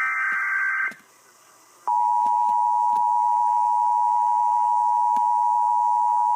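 Emergency Alert System signal: the last burst of the SAME digital data header ends about a second in. After a short gap the steady two-tone EAS attention signal starts and holds.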